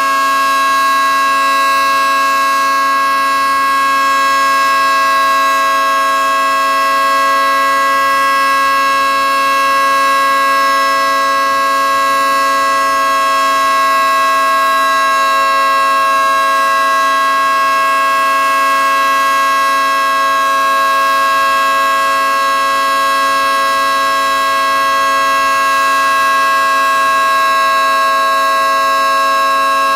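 Outdoor warning siren sounding a steady alert: a loud chord of several tones held at constant pitch, with no rise or fall.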